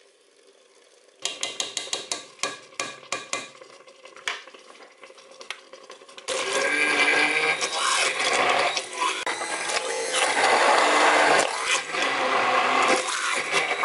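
A few clicks and knocks, then, about six seconds in, a hand-held immersion blender starts up and runs unevenly, puréeing thawed leaf spinach.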